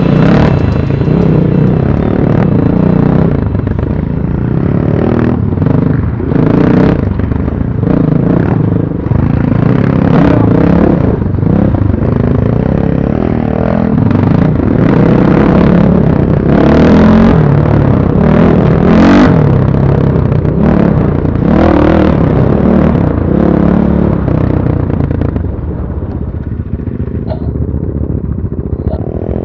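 BSE Z6 enduro motorcycle's single-cylinder engine running under way, its pitch rising and falling as the throttle is worked. It eases off somewhat in the last few seconds.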